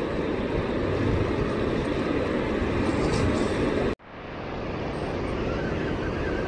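Steady rush of water pouring through the open gates of Lake Lavon Dam's spillway and churning white below it. The sound breaks off for an instant about four seconds in and comes back duller.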